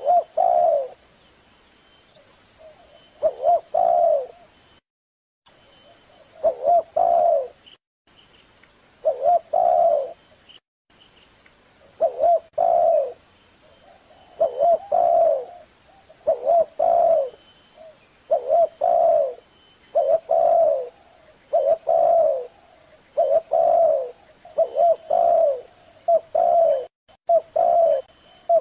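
Spotted dove cooing: short phrases of two or three low coos, repeated over and over, every two to three seconds at first and closer together later on.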